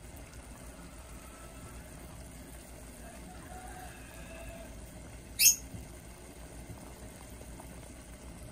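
Sweet-sour pickling syrup with carrot strips boiling in a stainless steel pot on a gas burner: a steady bubbling hiss. A single sharp, high chirp cuts in about five and a half seconds in, and faint short tones come and go around the middle.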